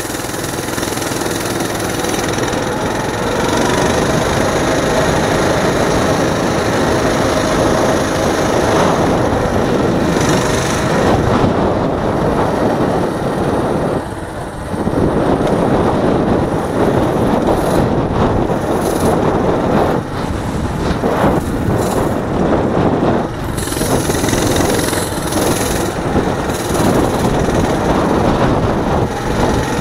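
Coleman CT200U-EX mini bike's single-cylinder four-stroke engine running as the bike is ridden, easing off briefly about halfway through.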